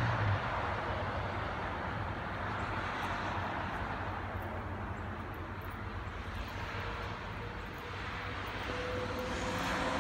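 Steady outdoor vehicle noise: a low rumble with a hiss over it, growing slightly louder near the end, where a faint steady hum comes in.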